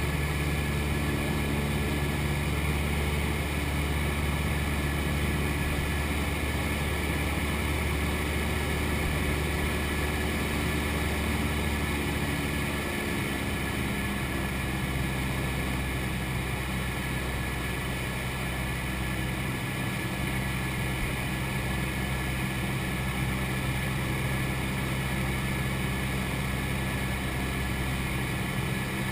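Cessna 172's single piston engine and propeller droning steadily in the cockpit, its note shifting a little under halfway through.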